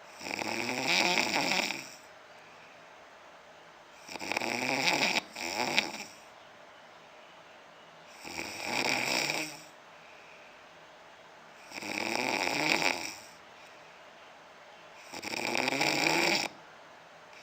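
A sleeping man snoring: five snores about every four seconds, each lasting one to two seconds, with a wavering pitch and quiet in between.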